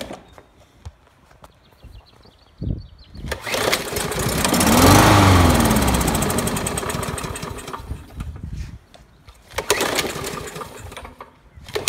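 A 2013 Troy-Bilt push mower's 140cc Briggs & Stratton engine, primed with a shot of carburetor cleaner, catches about three seconds in. It revs up, runs for a few seconds, then slows and dies. Running only briefly and then stopping shows it has spark but a carburetor problem, or possibly water in the fuel. A short burst of noise follows near the end.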